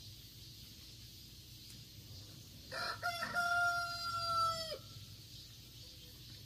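A rooster crowing once, about three seconds in: a choppy start, then a long held note that drops away at the end.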